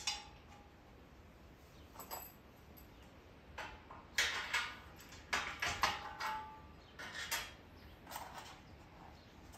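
Metal parts being fitted by hand on a motorcycle dolly's steel wheel-chock frame: a metal bar and bolts slid into its holes, making light clinks and scrapes with a couple of short metallic rings. The handling is busiest from about four to seven and a half seconds in.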